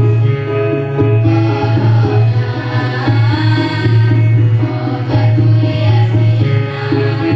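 Choir singing with a steady bass and a rhythmic drum accompaniment.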